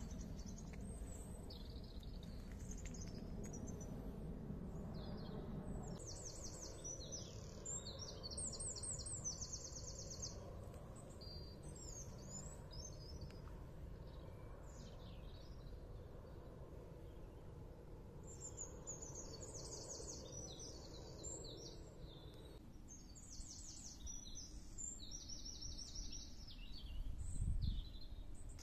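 Garden birds singing, with several runs of rapid, evenly repeated high notes, over a steady low outdoor rumble. A short low bump comes near the end.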